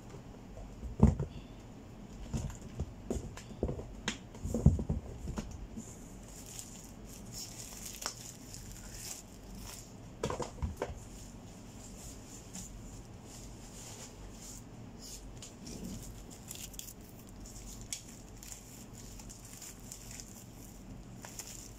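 Items being packed by hand into a cardboard carton: scattered knocks and thuds, the loudest about a second in and around four to five seconds in, with plastic wrapping rustling and crinkling in between.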